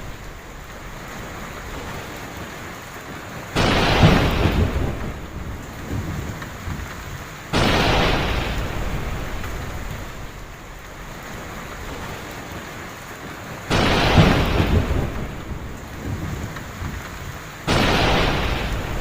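Heavy rain falling steadily, broken by four sudden claps of thunder, each rumbling away over a few seconds.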